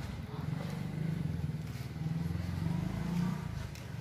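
Motorcycle engine idling steadily, a low, even putter.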